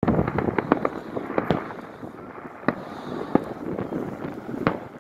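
Aerial fireworks: a quick string of bangs and crackles in the first second and a half, then single booms about a second apart.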